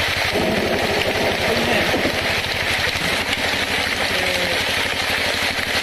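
Power tiller (two-wheeled walking tractor) engine running steadily with a fast, even pulse.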